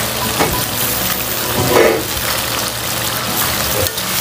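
Papaya pieces simmering in coconut milk in a wok, a steady sizzling and bubbling, with a couple of light knocks.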